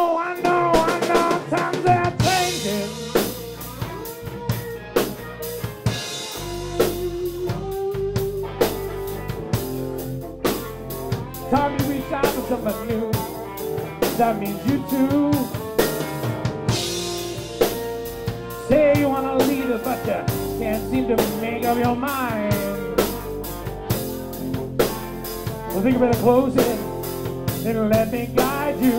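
Live rock band playing an instrumental passage: drum kit, bass and a lead line with bending, gliding notes over sustained chords.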